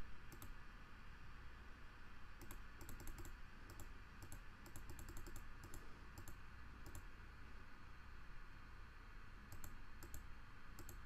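Faint computer clicks in quick clusters of several a second, with pauses between, as the arrow keys of an on-screen calculator are clicked to page through its menus. A low steady hum sits underneath.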